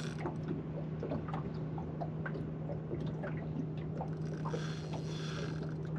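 Scattered small clicks, knocks and wet handling sounds as a freshly caught flathead is dealt with in a boat, over a steady low hum.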